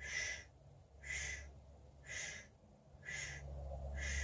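Short, sharp breaths about once a second, each under half a second, in time with small pulsing movements in a standing yoga backbend. A steady low rumble of wind on the microphone runs underneath.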